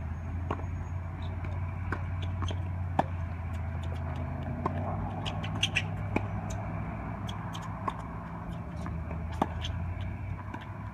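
Tennis ball struck back and forth in a long baseline rally: sharp pops of racket on ball, with ball bounces between them, about every second or so, some nearer and louder than others. A steady low hum runs underneath.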